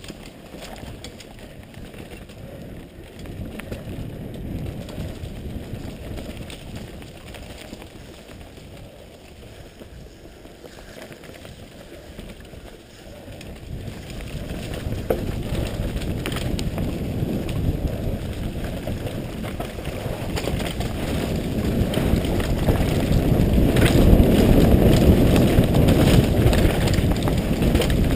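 Mountain bike descending a dirt trail, heard from a helmet-mounted camera: wind noise on the microphone and tyres rumbling over dirt, rocks and roots, with scattered rattles and clicks from the bike. It grows steadily louder from about halfway through as the speed builds.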